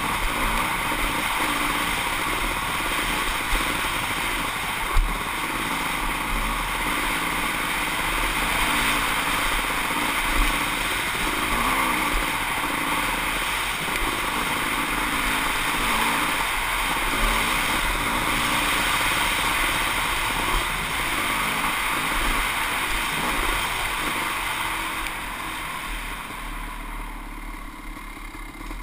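Kawasaki KX500 two-stroke single-cylinder motocross bike running along a dirt trail, its engine note rising and falling with the throttle, mixed with wind noise and a few sharp knocks. It eases off and gets quieter near the end.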